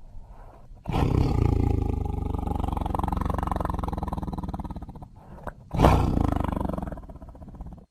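Tiger roaring: a faint low growl, then a long, loud roar starting about a second in and lasting about four seconds, and a second, shorter roar near the end that fades away.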